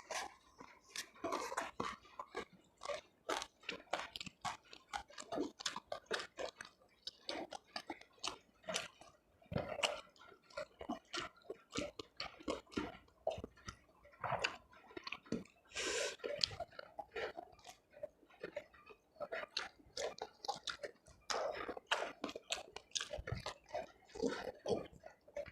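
A person chewing food close to the microphone, with many crisp crunches as it is bitten and ground between the teeth.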